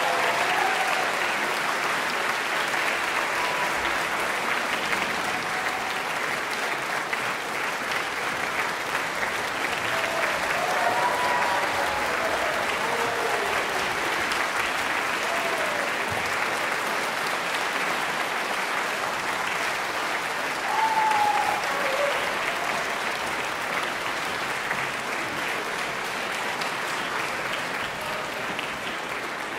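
Large concert audience applauding steadily, with a few cheering voices rising above the clapping now and then. The applause thins slightly near the end.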